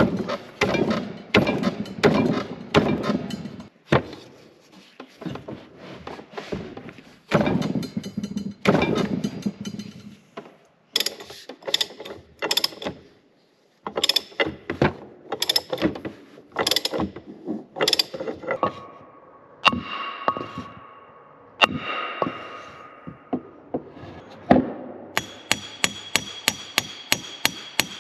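Metal knocking, rattling and clicking as the gland with its new seal kit is forced onto the chrome rod of a hydraulic cylinder with hand tools. Dense rattling at first, then separate sharp knocks, a few ringing metallic tones, and a fast, even clicking near the end.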